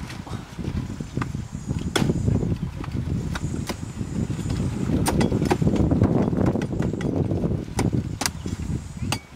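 Wind rumbling on the microphone, with sharp snaps and cracks scattered through it, about one a second, from the dry stalks and fronds of a palmyra palm being gripped and cut.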